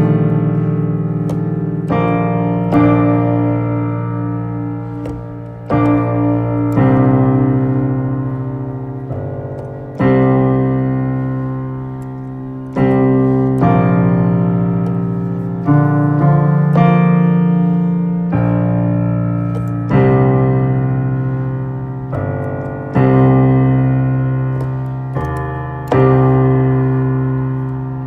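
Improvised keyboard music: slow, low sustained chords, each struck every one to three seconds and ringing out as it fades before the next.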